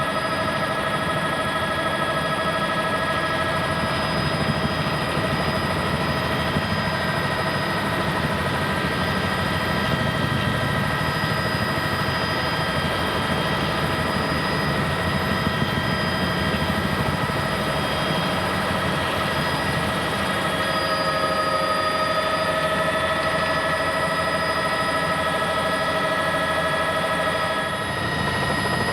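Steady helicopter noise heard from aboard the aircraft: the rotor's low beat under several constant whining tones from the engine.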